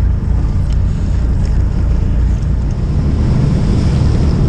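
Fishing boat's engine running with a steady low rumble, with water washing past the hull and wind on the microphone.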